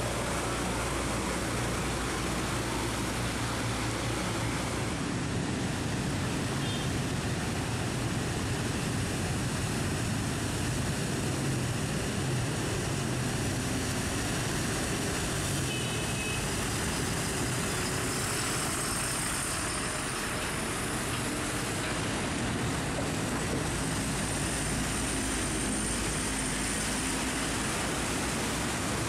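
Heavy rain with truck and car traffic passing on a flooded road: a steady hiss of rain and water under low engine sound. About two-thirds of the way through, a high thin whistle rises and then holds steady.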